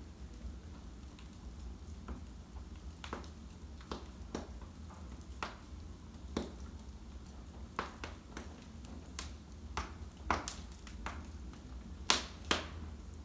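Wood fire in a fireplace crackling, with irregular sharp pops over a low steady rumble; two of the loudest pops come close together near the end.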